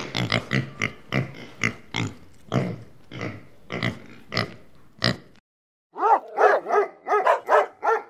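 Domestic pigs grunting in short, quick grunts, two or three a second. After a brief silence, about six seconds in, dogs yip in a fast run of short calls that rise and fall in pitch.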